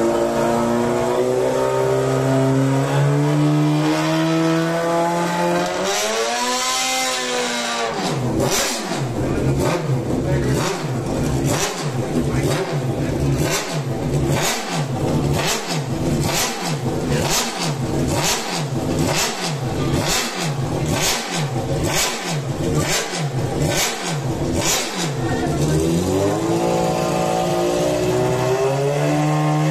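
Sport motorcycle engine run up indoors: it idles with a steady note, climbs in pitch, then is blipped on the throttle about once a second for some seventeen seconds, each blip ending in a sharp crack, before settling back to a steady idle near the end.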